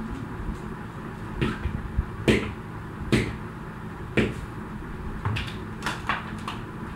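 Jump rope workout: a plastic skipping rope and feet smacking the floor in sharp slaps at uneven intervals, the loudest near the middle, over a steady background noise.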